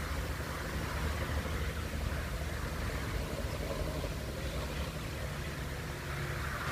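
Steady highway traffic noise: a low rumble under a hiss of tyres that swells and fades as vehicles pass, swelling again near the end.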